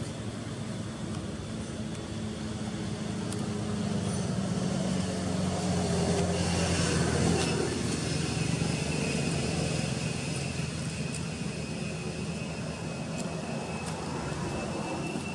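Steady low engine drone of a passing motor vehicle or aircraft, swelling to its loudest about halfway through and then fading. A thin steady high whine comes in during the second half.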